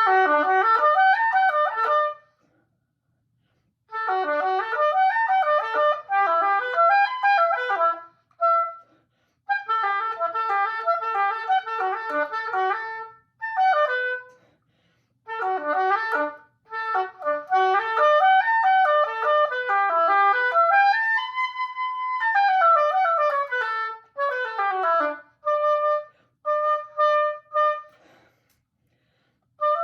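Solo oboe playing fast runs of rapid notes in short phrases with brief pauses between them, including a held note about two-thirds of the way through and a few separate detached notes near the end: a practice run through a passage of 16th-note triplets and 16th notes.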